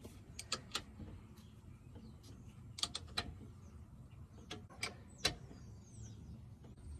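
Scattered sharp metal clicks and clinks from a wrench tightening the nuts on the driveshaft yoke's U-bolts, at irregular intervals with pauses between strokes.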